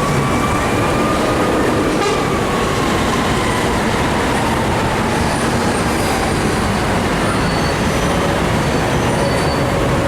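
Fire engine running on an emergency call, its siren in a slow wail that rises in the first second, falls away over the next several seconds and starts to climb again near the end, over loud, steady engine and road noise.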